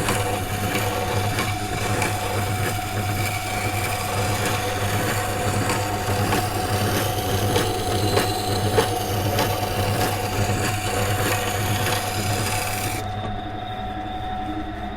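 Carbon steel knife blade being ground on a water-cooled stone wheel grinder, putting on the secondary bevel: a steady motor hum under an even scraping hiss of steel on wet stone. The scraping stops near the end while the hum continues.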